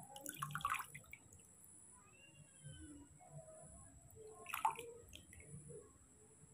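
Water dripping and splashing in a small plastic basin as a hand trickles and pats water over a newborn baby monkey, with a run of small drips in the first second and a louder splash about four and a half seconds in.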